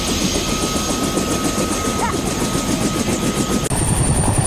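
Helicopter running, its rotor blades beating in a fast rhythm under a steady high turbine whine. Near the end the sound changes abruptly and the whine rises to a higher pitch.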